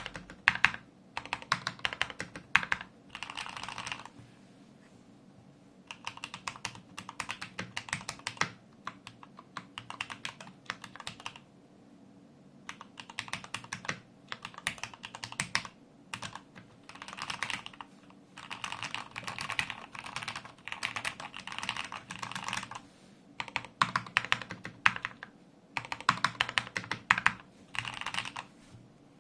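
Typing on a Corsair K70 MK2 mechanical keyboard with lubed Cherry MX Speed Silver linear switches and lubed stabilisers, its case lined with sound-deadening mat. Fast runs of keystrokes come in bursts of a few seconds, with brief pauses between them.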